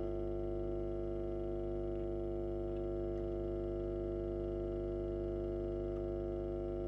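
Davoli D531T valve guitar amplifier humming steadily while idling, a low mains hum with a buzzy row of overtones.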